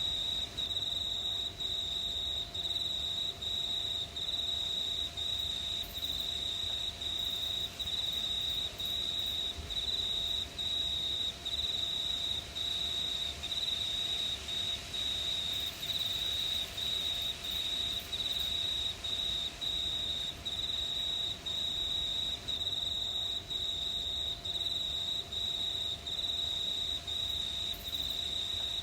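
Crickets chirping: a continuous high-pitched trill broken by short gaps at an even, regular pace.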